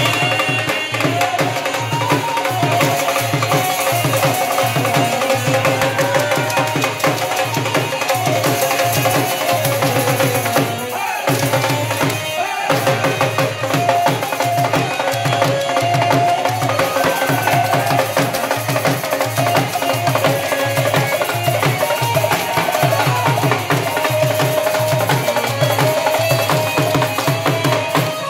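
Live bhangra music: a dhol beaten in a fast, steady rhythm with wooden sapp clappers clacking and a melody carried over it. The beat breaks off briefly twice about halfway through.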